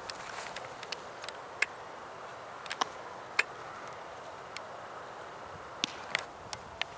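Open-air baseball practice field: a steady background hiss with scattered sharp cracks and knocks of balls striking bats and gloves.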